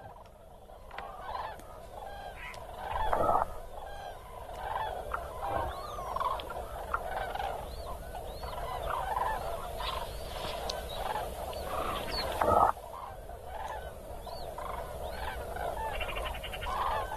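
A large flock of birds calling: many short calls overlapping in a continuous din. Two louder, deeper sounds stand out about three seconds and about twelve seconds in.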